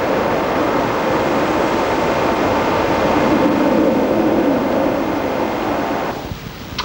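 A loud, steady rumbling hum with a faint drone running through it, cutting off abruptly about six seconds in.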